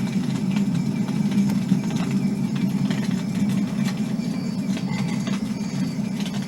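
The campfire wake sound played through the Verilux VA04 alarm clock's speaker: a recorded fire crackling, with a steady low rumble and scattered crackles throughout.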